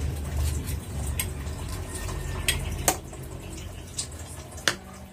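Knife clicking against a plate while mango is being cut and peeled: a handful of sharp, separate clicks, the loudest about three seconds in.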